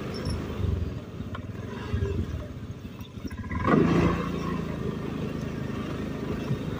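Automatic scooter engine running slowly, with a louder, rising swell about four seconds in.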